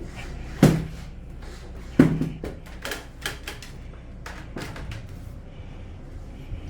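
Two loud knocks, the second followed by a short rattle, then several lighter clicks and clatters, over a steady low hum.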